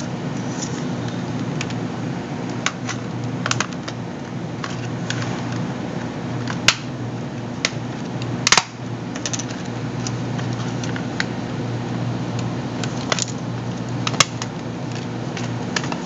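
Scattered small plastic clicks and snaps as the plastic case of a Magellan RoadMate 1700 GPS is pried apart by hand, with two sharper snaps about seven and eight and a half seconds in and another near the end. A steady low hum runs underneath.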